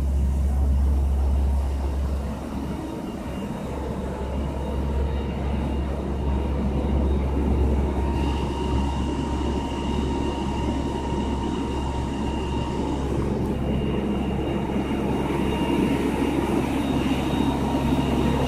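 Fire trucks' engines running stationary, a steady low rumble. A faint high-pitched whine joins about eight seconds in.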